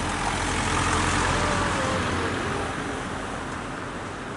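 A road vehicle passing by. It is loudest about a second in, then fades away.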